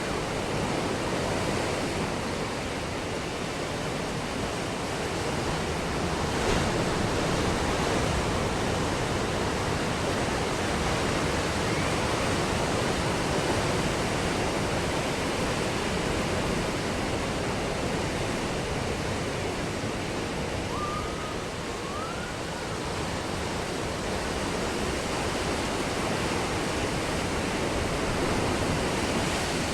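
Ocean surf breaking on a beach, a steady rush of water that swells and eases slowly. A faint, short wavering call sounds about two-thirds of the way through.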